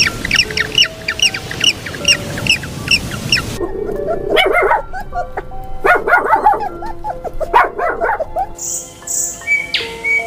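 A small dog barking repeatedly in quick runs for about five seconds, starting about three and a half seconds in, after a string of rapid high chirps at about three a second; light background music runs underneath.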